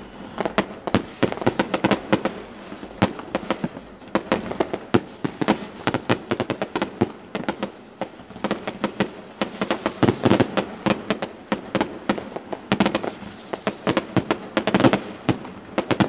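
Fireworks going off in a rapid barrage: dense, fast volleys of sharp cracks and bangs, several a second, with no let-up.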